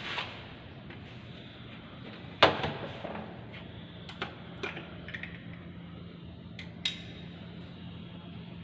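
One loud knock about two and a half seconds in, then a few lighter clicks and taps, as parts of a forklift are handled during a pre-shift check; a steady low hum runs underneath.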